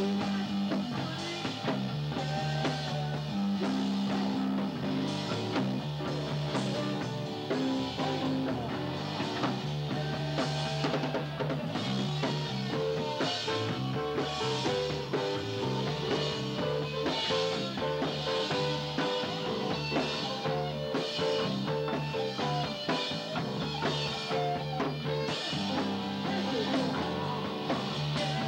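A rock band playing together: a drum kit with cymbals keeping a steady beat over a moving bass line and electric guitar.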